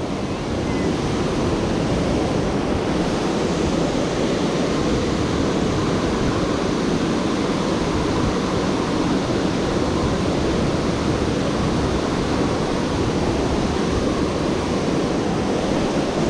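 Steady rushing of water pouring over a dam, an even unbroken wash of noise.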